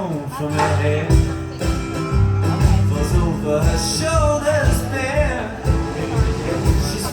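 Live band playing an instrumental passage: a steady drum beat and bass under a lead melody that wavers in pitch.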